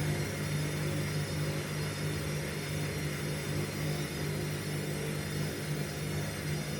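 Indesit washing machine running with an unbalanced load: a steady motor hum under an even rushing noise.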